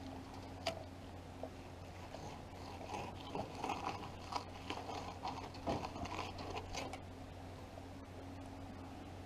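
Fillet knife cutting and scraping through a fish laid on a canoe paddle blade: a run of small, faint crunches and scrapes, busiest in the middle.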